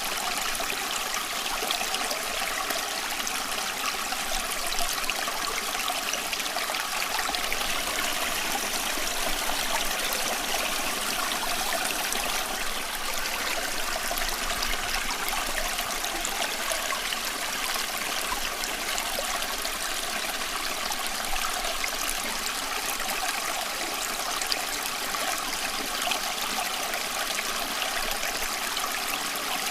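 Running water, a stream or brook flowing and trickling in a steady, unbroken rush.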